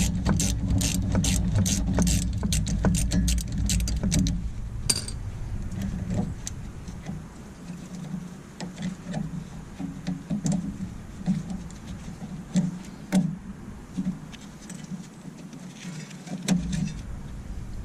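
Ratchet wrench clicking rapidly, about five or six clicks a second, over a low rumble for the first four seconds or so, then scattered light metallic clinks and clanks of tools and brake parts.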